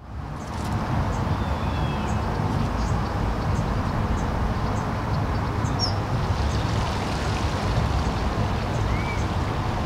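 Outdoor background noise: a steady low rumble and hiss, with a couple of faint, short high chirps.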